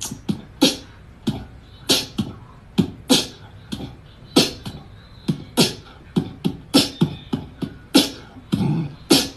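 Beatboxing: a quick, uneven rhythm of sharp percussive mouth sounds, mixing low thumps with hissy hi-hat-like hits.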